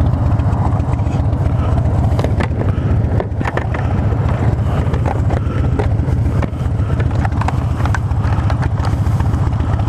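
Harley-Davidson Fat Bob's V-twin engine running steadily while the motorcycle is ridden along.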